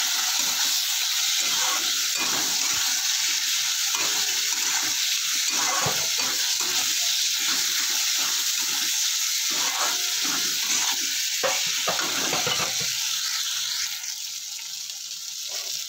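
Potatoes and spice paste frying and sizzling in a kadai while a metal spatula stirs and scrapes through them, as the masala is fried down (koshano). The sizzle drops a little near the end.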